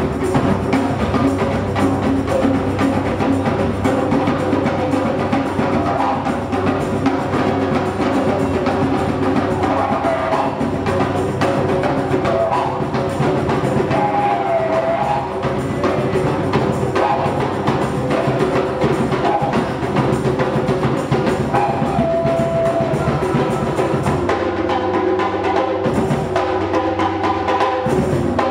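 Live percussion ensemble playing: congas, djembe and hand drums beating a dense rhythm over the steady low drone of a bamboo didgeridoo. The drumming thins out near the end.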